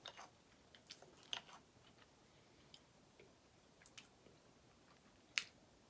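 Close-up chewing of soft cheesecake: faint, scattered wet mouth clicks and smacks, the sharpest a little after five seconds in.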